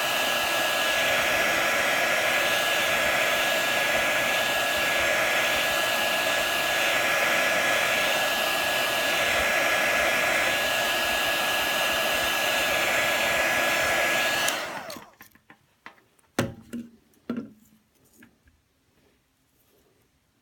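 Heat gun blowing steadily with a thin whistling whine, heating the phone's glass to soften the adhesive under it. It switches off about fifteen seconds in, followed by a few light knocks and clicks.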